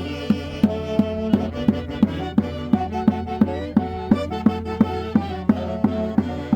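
A Huancayo festival band playing traditional Andean music, a violin leading over a steady beat of about three strokes a second.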